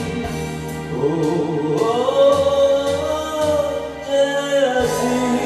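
Karaoke backing track with a man singing, rising into one long held note that stops about five seconds in.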